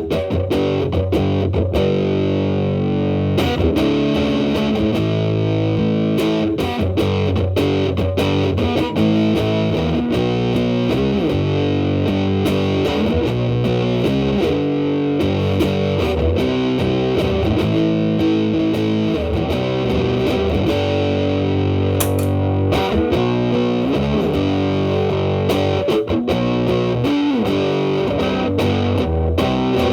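Electric guitar, a Telecaster with Alnico single-coil pickups, played through a Big Muff Pi fuzz pedal with its sustain knob near 9 into a Marshall Valvestate amp's clean channel. Heavily fuzzed, sustained chords and notes played without a break.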